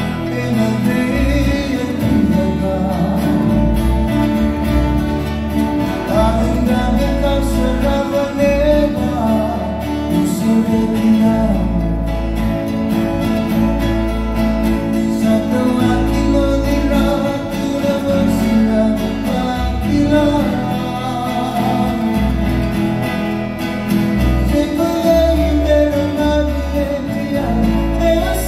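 A small acoustic string band playing a Fijian song live: men singing over an acoustic guitar and a ukulele, without a break.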